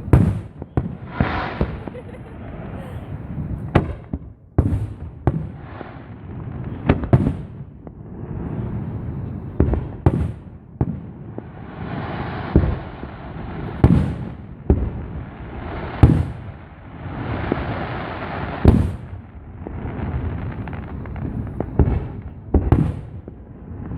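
Fireworks show: repeated booms of aerial shells bursting at irregular intervals, a dozen or more, with crackling hiss between some of them.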